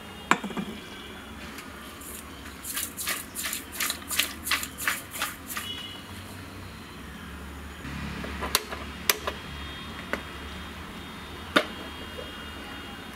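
Steel cooking pots and utensils being handled: a run of quick light clinks and knocks, then a low steady rush from about eight seconds in with a few sharp metal knocks as the steel pot is set on the gas stove.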